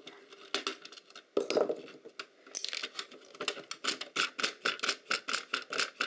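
Small clicks from screws being undone on the docking station's circuit board: a knock about a second and a half in, then a quick, even run of sharp clicks, about three a second.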